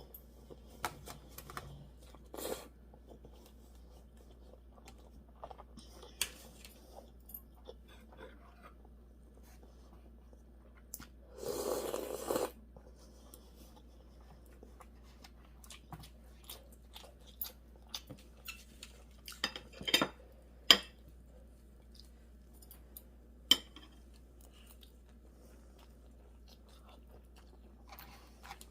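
A person chewing and biting food in a mukbang of gimbap and cup ramen: scattered soft clicks and crunches with quiet gaps between them, and a longer noisy stretch about twelve seconds in.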